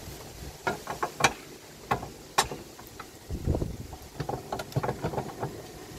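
Steel high-lift jack clanking and clicking against roof-rack mounting brackets as it is lifted and seated into them: irregular sharp metal knocks, a few loud single ones in the first half, then a quicker cluster of smaller clicks.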